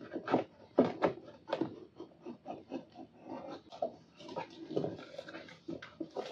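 Scissors cutting into the seal of a small cardboard box, a run of short irregular snips and scrapes. Later the cardboard is handled and its top pulled open with rustling and crackling.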